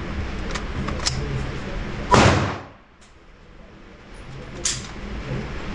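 A single loud gunshot about two seconds in, with a short echo trailing off, amid a few small clicks.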